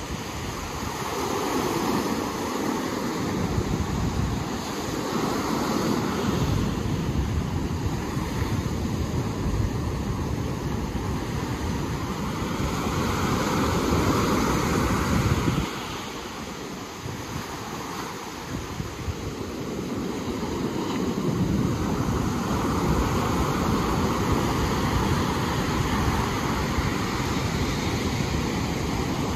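Ocean surf washing ashore in waves that swell and fade, with wind buffeting the microphone. The sound builds toward the middle, drops off sharply just past halfway, then builds again.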